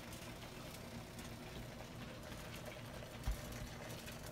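Squid stir-frying in a stainless steel skillet: a faint steady sizzle, with a spatula scraping and ticking against the pan and one dull thump about three seconds in.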